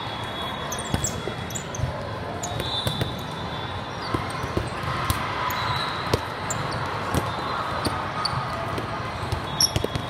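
Volleyball play in a busy tournament hall: irregular thuds of volleyballs being hit and striking the floor, with short high squeaks scattered throughout over a steady background din.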